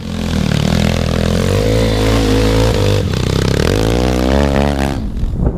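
Racing lawn mower's small engine running hard at high revs while being driven. Its pitch swings up and down over the last couple of seconds, then drops away near the end.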